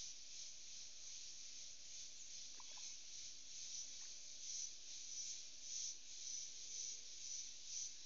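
Dusk insect chorus from tropical forest: a dense, high-pitched buzzing that swells and fades in pulses, about one to two a second, more strongly toward the end. A brief chirp sounds about two and a half seconds in.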